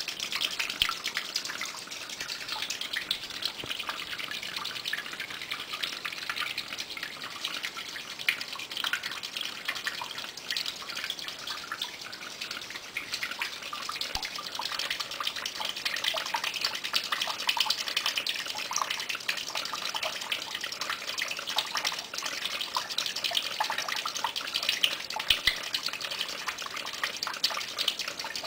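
Stream of water falling and splashing steadily onto a small homemade water turbine, with a dense patter of drips. The water is spinning the turbine, which is generating a small voltage.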